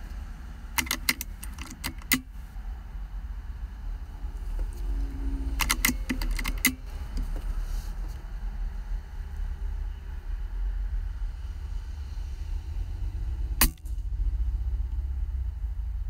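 Clusters of sharp metallic clicks from handling a Taipan air rifle, one near the start and one about six seconds in, each lasting a second or so, then a single click near the end. A steady low rumble runs underneath.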